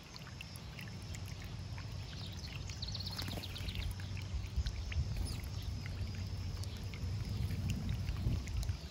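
Small birdbath fountain bubbling and splashing water over rocks, with house sparrows chirping; a quick run of chirps comes about three seconds in.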